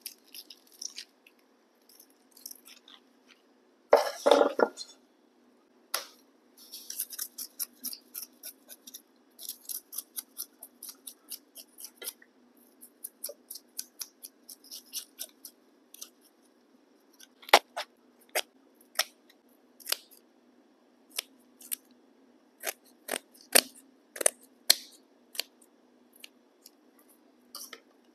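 A fish scaler scraping scales off a whole fish on a plastic cutting board in quick, short strokes, several a second, with sharper clicks and knocks later on. A louder scrape comes about four seconds in, and a faint steady low hum runs underneath.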